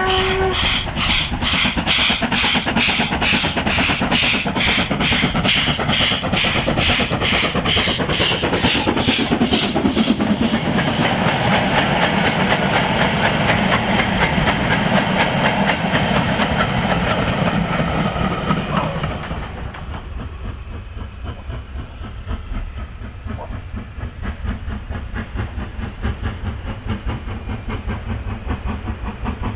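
Steam locomotive working a freight train past close by, its exhaust beating hard about three times a second. The box vans then roll by with a steady clatter of wheels on the rails. About two-thirds through the sound drops to a quieter, steady noise.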